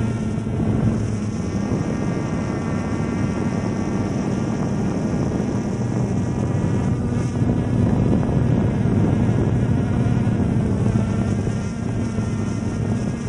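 DJI Phantom quadcopter's motors and propellers buzzing steadily in flight, heard up close from a camera mounted on the drone itself. It is a strong, even hum with many overtones.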